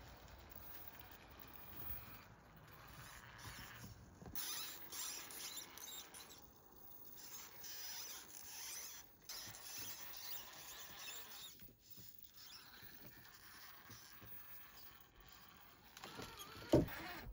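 Electric RC rock crawler (Axial Wraith with a Hobbywing Fusion Pro brushless motor) crawling over wooden blocks: a soft, uneven whirr from the motor and drivetrain with tyres scraping and creaking on the wood, and one loud knock near the end.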